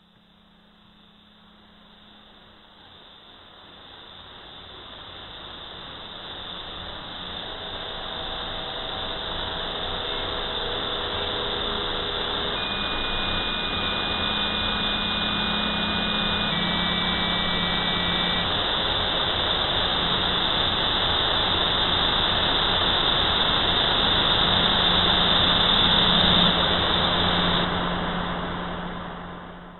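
A swelling roar of filtered noise, like a jet engine, with a steady low hum and a few faint held tones inside it. It builds slowly for most of the stretch and then falls away quickly near the end: an electronic noise swell opening a rock-ballet score.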